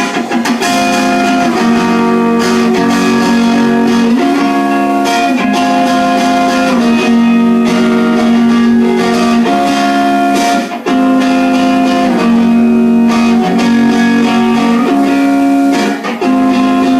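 A guitar playing a chord progression, the chords changing about every second or so.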